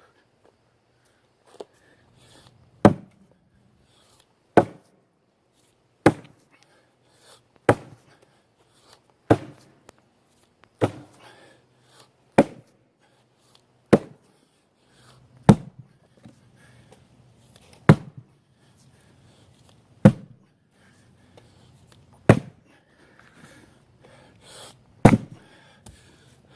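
Axe chopping into a large piece of wood: a steady series of sharp strikes, about one every one and a half to two seconds, some thirteen in all.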